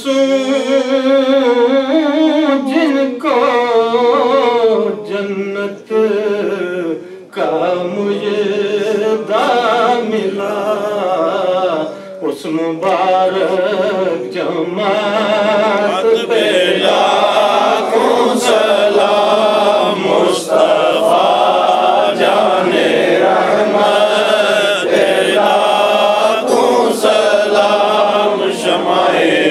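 Men chanting a devotional recitation together in unison, led by one voice at a microphone; the sound grows fuller about halfway through as more voices join in.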